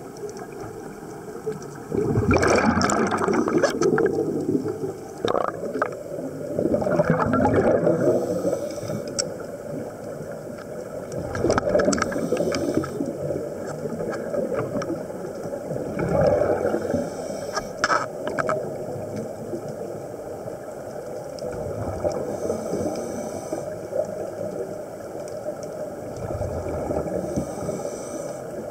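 Scuba diver's regulator breathing underwater: exhaled bubbles rush out in bursts every four to five seconds, loudest in the first eight seconds, over a steady low underwater rumble.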